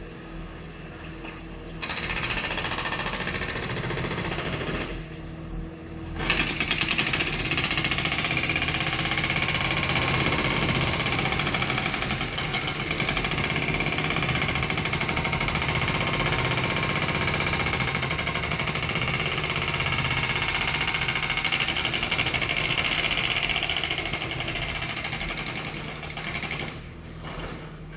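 Pavement breaker hammering road surface in rapid, continuous strokes: a bout of about three seconds, a short pause, then a long run of about twenty seconds that stops near the end.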